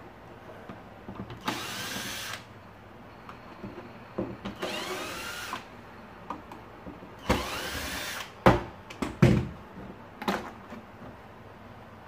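Power screwdriver backing out the Phillips screws that hold a vacuum cleaner's plastic top cover: three short runs of about a second each, followed by a few clicks and knocks.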